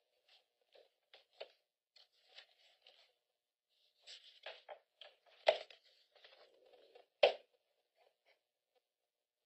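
Paper being handled and shuffled: a scattered run of short crinkles and scrapes, with two sharp knocks, one about five and a half seconds in and one a little past seven seconds.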